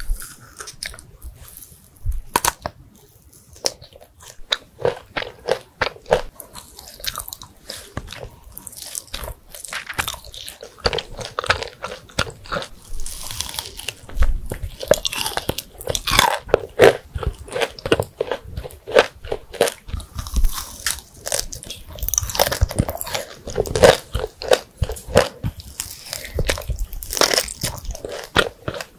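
Close-miked biting and chewing of Turkish roll lokum, nut-filled Turkish delight with crunchy nut pieces and coatings, as a run of crunches and small clicks. A sharp bite comes right at the start and another about two seconds in, with louder, busier crunching about halfway through and again later.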